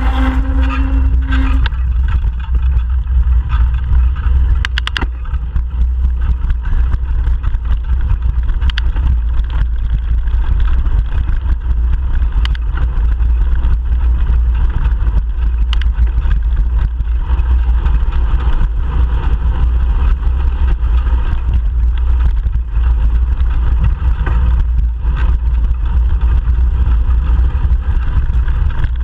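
Steady low wind rumble on a bike-mounted GoPro Hero 3 Black's microphone while riding, over the noise of road traffic. A pitched hum fades out about a second and a half in, and a few sharp ticks come through later.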